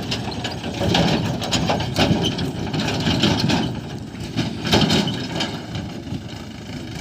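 Heavy diesel machinery running steadily, with several irregular clanks or knocks over it.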